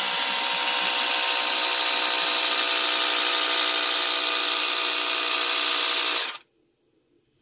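Cordless handheld tire inflator running steadily, its small compressor pumping air into a bicycle tire, then cutting off abruptly about six seconds in once the tire reaches about 25 psi.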